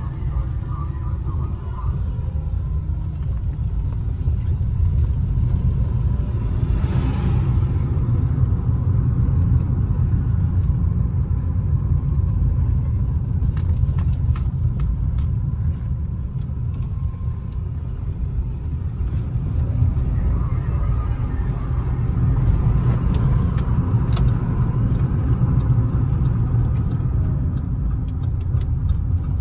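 Steady low rumble of a Fiat 500's engine and tyres, heard inside the cabin while driving slowly. There is a brief rush of noise about seven seconds in and a few light clicks later on.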